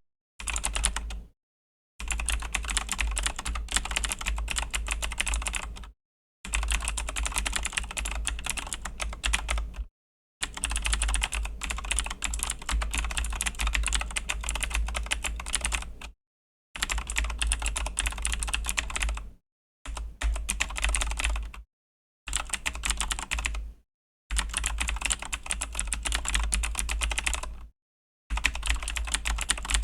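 Fast typing on a Razer BlackWidow V3 mechanical keyboard with Razer Green clicky switches: dense runs of sharp key clicks lasting a few seconds each, broken by short pauses of dead silence.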